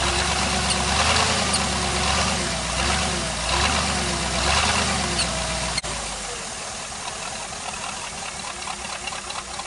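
The failing alternator of a 1984 Mercury Marquis whines over the idling engine, with a pitch that wobbles up and down, the sign of a dying alternator. The whine and the engine rumble fade about two-thirds of the way through.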